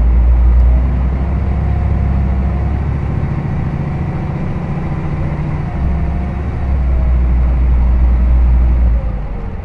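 Hino Rainbow HR city bus heard from inside the cabin: its diesel engine drones low and steady over road noise. The drone eases off about three seconds in and builds again about six seconds in.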